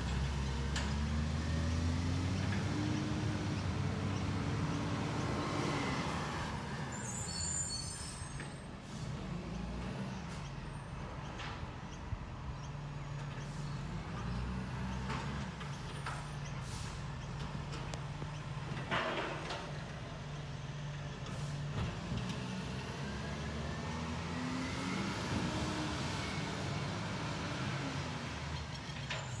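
Diesel garbage truck engine driving off and moving away, its pitch rising twice as it accelerates through the gears, with a short air hiss about two-thirds through.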